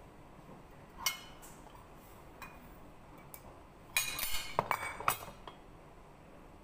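A set of nested measuring cups clinking and clattering together as they are handled and set down on a counter. There is a single tap about a second in, then a quick run of clinks about four to five seconds in.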